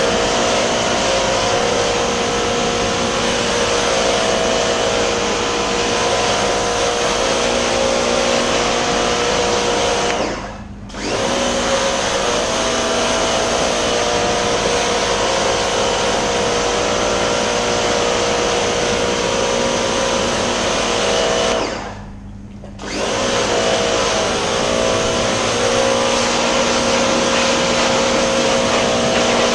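Electric pressure washer running, its motor and pump humming steadily under the hiss of the water jet spraying a dirt bike's wheel and frame. The sound dips briefly twice, about ten seconds in and again about twenty-two seconds in.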